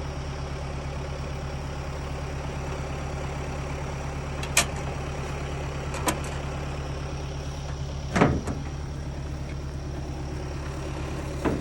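Tractor engine idling steadily, with a few brief sharp knocks or clicks over it.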